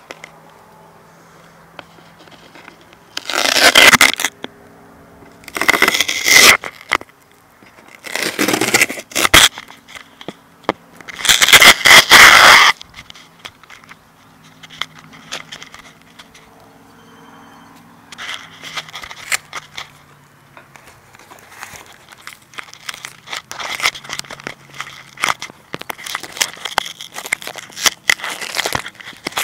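Handling noise on an iPod nano camera's microphone: it is rubbed and scraped against hands and clothing, with four loud crackling bursts in the first half and a run of smaller crackles near the end.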